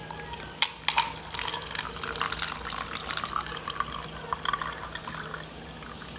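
A plastic bag of half-melted ice cubes being handled: the plastic crinkles and the meltwater sloshes inside, with a couple of sharper clicks about a second in.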